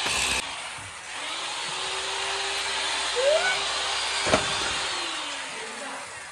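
Electric demolition hammer with a chisel bit chipping ceramic wall tiles: a short loud burst at the start, then a steady running sound that fades away near the end, with one sharp knock a little past four seconds in.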